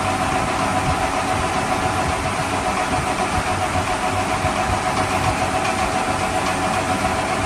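Steady engine running noise, like a vehicle idling, with a faint constant whine through it.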